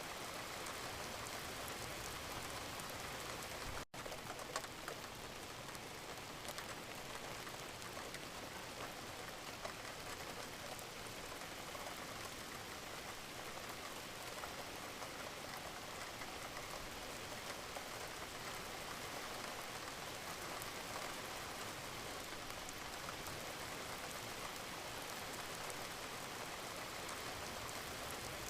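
Steady gentle rain falling, with separate drops audible on a surface. The sound drops out for an instant about four seconds in.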